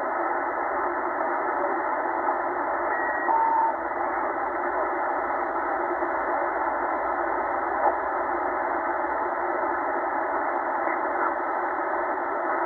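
Tecsun H-501X shortwave receiver in upper sideband, tuned across the 20-metre amateur band: steady, narrow-band static hiss. About three seconds in, a brief whistling tone of a passing signal.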